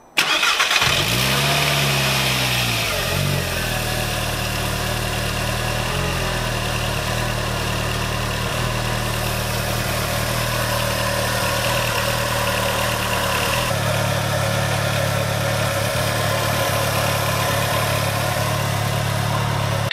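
A VW Golf Mk4 1.8T (AUM) turbocharged four-cylinder engine starting. It fires at once, the revs flare up and drop back, and it settles into a steady idle whose note shifts slightly about fourteen seconds in. One outlet of the newly fitted catch-can T-piece is still unplugged, an open vacuum leak that the owner later blames for an uneven idle.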